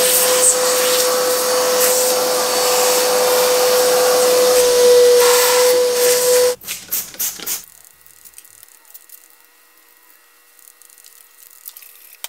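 Shop vacuum running with a steady whine, sucking heavy dirt off an engine; it cuts off about six and a half seconds in, followed by a few light knocks.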